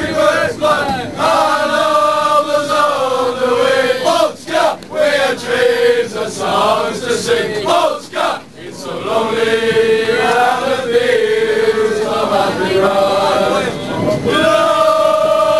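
A crowd of football supporters singing a chant together inside a packed tram, loud with long held notes. The singing drops out briefly about eight seconds in and then starts up again.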